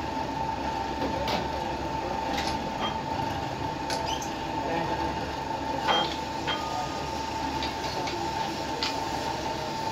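Short metal clinks and knocks from a lathe's four-way tool post as a cutting tool is set and clamped, over a steady machine hum with a constant high tone.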